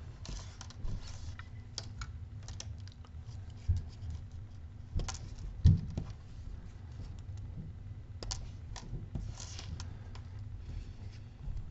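Scissors snipping the male pin ends off thin jumper wires, mixed with light clicks and taps of the wires and cut-off pins on a tabletop. The clicks come irregularly, the sharpest about five and a half seconds in.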